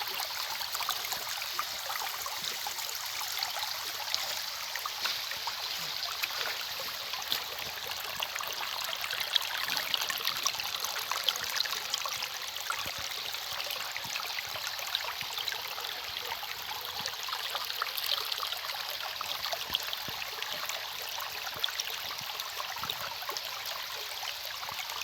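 Water flowing steadily, trickling with many small splashes.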